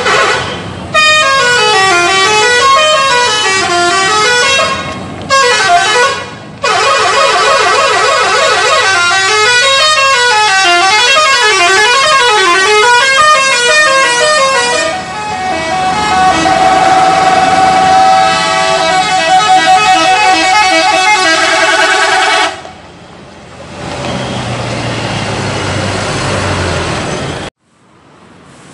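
Indonesian bus 'telolet' horn, a multi-tone musical air horn, playing a warbling melody whose tones swing up and down about once a second, with a short break about six seconds in. It then holds a steadier chord of several tones before stopping about three-quarters through, followed by quieter sound and an abrupt cut near the end.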